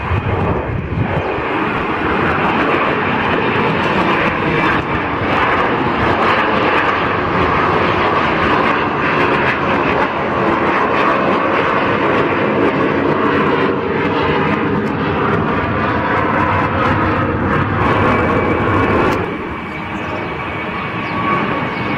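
McDonnell Douglas MD-80-series jet climbing out at takeoff power, its rear-mounted Pratt & Whitney JT8D engines giving a loud, steady jet rumble. About 19 s in, the sound drops to the quieter jet noise of a twin-engine Airbus A321 climbing away.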